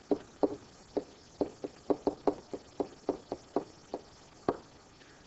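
Pen stylus tapping and knocking against a writing surface as a word is handwritten: about fifteen short, irregular knocks, stopping a little before the end.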